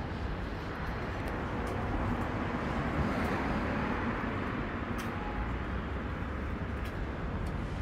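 City street traffic noise over a steady low rumble. A passing vehicle swells to its loudest a few seconds in, then eases off.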